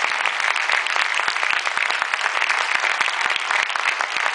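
Church congregation applauding: steady clapping of many hands.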